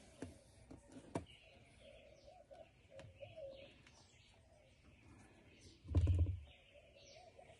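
Quiet bench handling while soldering a small circuit board: a few light clicks of tools and parts, and one heavier thump about six seconds in. Faint, wavering chirps can be heard in the background.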